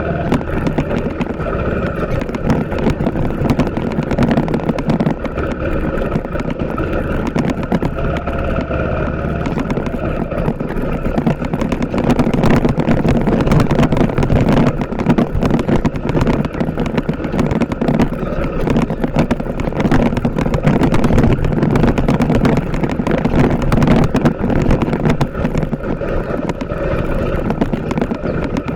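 TVS Apache RTR 160 4V motorcycle's single-cylinder engine running steadily while being ridden, with a constant clatter of short knocks over it. It gets a little louder from about twelve seconds in.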